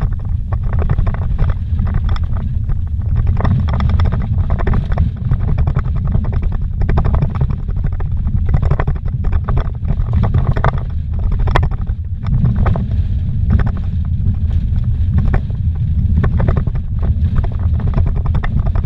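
A vehicle driven fast on a rough dirt road, heard from inside the cab: a loud, steady low rumble of engine and tyres, with frequent knocks and rattles as it bounces over ruts and gravel.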